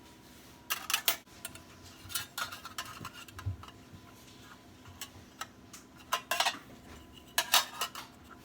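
Kitchen utensils and dishes clinking and tapping, in several short clusters of sharp clicks.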